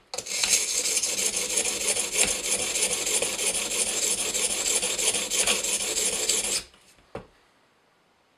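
Coarse 120-grit Edge Pro stone scraping in rapid back-and-forth strokes along the edge of a CTS-20CP steel knife blade, grinding on a new bevel. It stops about six and a half seconds in, followed by a short knock.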